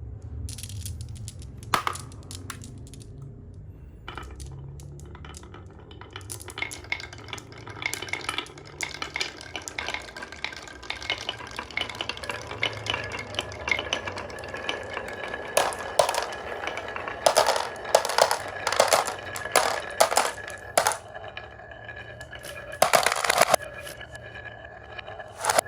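Marbles rolling and clacking along a marble run: a stream of small clicks and rattles that gets busier in the second half, with dense clusters of clattering hits.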